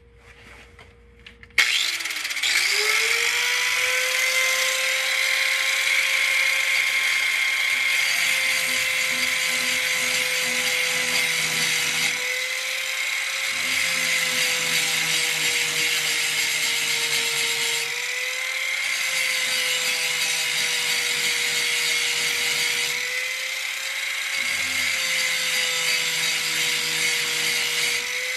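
Angle grinder switched on about a second and a half in, spinning up to a steady high whine, then grinding the edge of a steel lawn mower blade to sharpen it. Three times the rough grinding noise drops out for about a second and the whine rises slightly as the disc comes off the metal.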